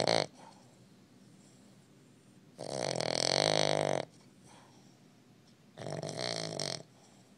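Boston Terrier snoring loudly, a snore of a second or so roughly every three seconds. One snore trails off right at the start, and two more follow.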